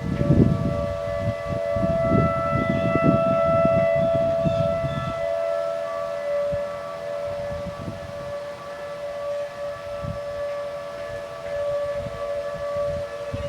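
Several outdoor tornado warning sirens sounding a steady tone together during a siren test, their slightly different pitches overlapping into one held chord.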